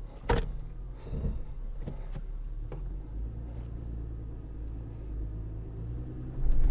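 A Toyota SUV's engine running steadily at low revs while the vehicle creeps slowly out of a ditch over rough ground, with a few sharp knocks and clunks from the body and suspension, the loudest just after the start; the engine noise swells near the end.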